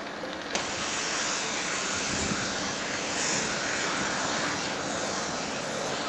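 AI-generated sound effect made by the Tango model for a nuclear-explosion clip: a steady, dense rushing noise that grows louder and brighter about half a second in. It does not sound much like a nuclear explosion; the model read the scene as a fire giving off a lot of smoke.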